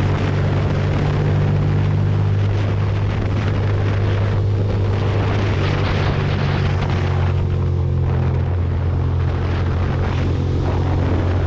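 Ducati Monster's V-twin engine running at a steady cruising speed, with wind noise on the microphone.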